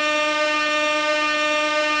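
Compressed-gas air horn sounding one continuous, steady blast, a loud, unwavering blare.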